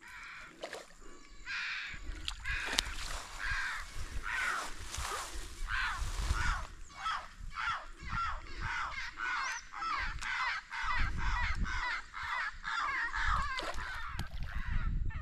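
Birds calling, many short calls in quick succession that come thicker after about seven seconds, over a low rumble.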